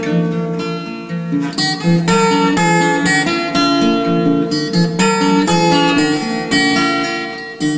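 Instrumental background music carried by plucked acoustic guitar notes.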